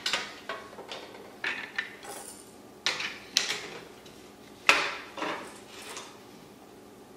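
Aluminium 2020 frame extrusions and a printed plastic spacing jig being handled and set down on a stone countertop: a string of irregular metallic clinks and knocks, the loudest a little past halfway.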